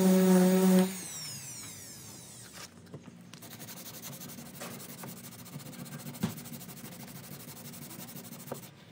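Orbital sander running steadily on a car's front bumper, switched off about a second in and winding down. It is followed by quieter rubbing of sandpaper worked by hand over the same patch, with a few light taps.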